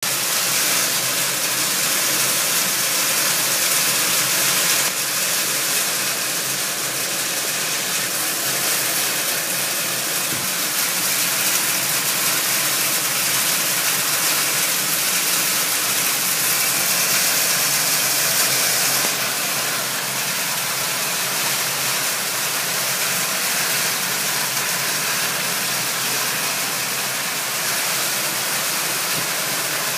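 Heavy rain and hail falling: a dense, steady hiss that eases slightly about two-thirds of the way in.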